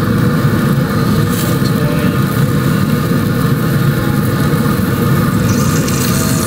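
Pellet grill running hot for direct searing: a steady low roar of its fan-blown pellet fire, with a faint steady hum from the blower motor.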